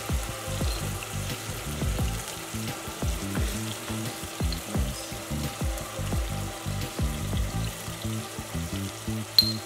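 Tomatoes frying in plenty of oil in a stainless steel saucepan, sizzling steadily with many small crackles. One sharp click near the end.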